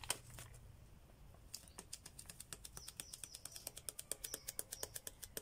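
A paper-foil sachet of ground hot paprika being shaken and tapped out over a small glass bowl: a fast run of light ticks and rustles, about eight a second, starting about a second and a half in.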